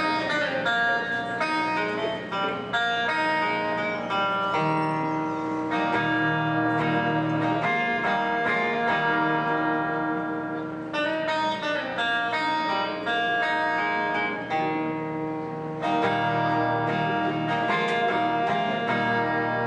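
Solo acoustic guitar played unaccompanied, picked notes and chords ringing over one another in a steady instrumental passage.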